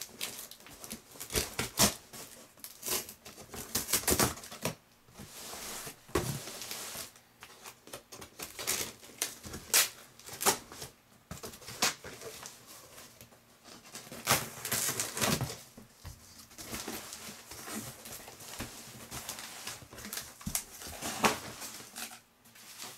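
Packing tape being ripped from a cardboard box and sliced with a knife, and the cardboard flaps being pulled open: a busy, irregular run of sharp rips, scrapes and rustles.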